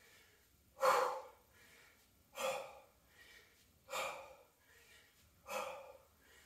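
A woman's forceful exhales, one with each dumbbell swing: four sharp breaths about a second and a half apart, each cut off quickly.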